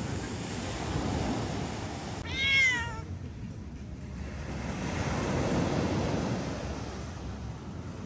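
A cat meows once, a short call that rises and then falls in pitch, over a steady low background rush.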